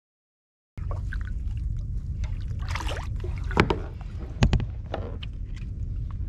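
Silence for the first moment, then wind rumbling on the camera microphone over water moving around a kayak, with several sharp knocks and clatters of gear against the kayak; the loudest knocks come a little past halfway.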